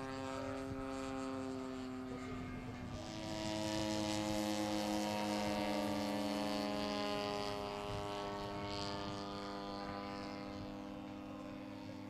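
Propeller engines of giant-scale radio-controlled model airplanes flying overhead, a steady droning note. About three seconds in the pitch shifts, a second engine note runs alongside, and the drone grows louder for a few seconds as a plane passes, then eases off.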